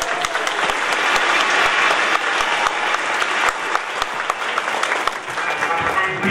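Audience applauding: a dense, steady clatter of many hands clapping at once.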